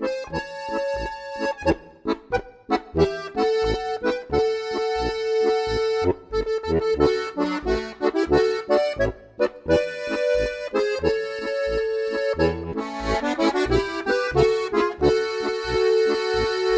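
A Steirische Harmonika (diatonic button accordion) plays a Bohemian-style tune: a melody of sustained chord notes over short bass notes on an even beat.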